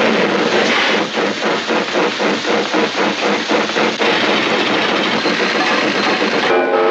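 Engine-like mechanical noise, chugging at about four or five beats a second, then settling into a steady rush for the last couple of seconds. Music comes in right at the end.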